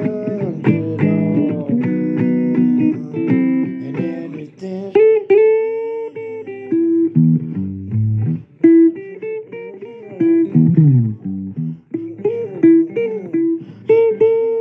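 Instrumental break in a blues song: a guitar plays a run of single plucked notes, several of them bent up and down in pitch, over a lower accompaniment.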